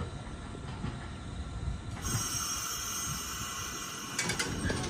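Nankai 7100-series two-car electric train at a station, starting to pull away: a steady low rumble, a steady high whine that sets in about two seconds in, and a few sharp clanks near the end.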